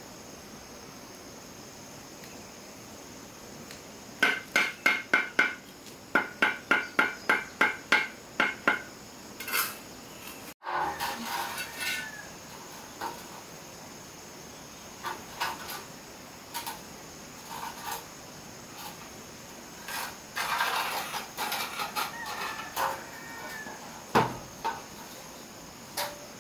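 A metal masonry tool tapping on brick: quick, sharp taps that ring at one pitch, about three a second, in two runs, followed by scattered scrapes and knocks.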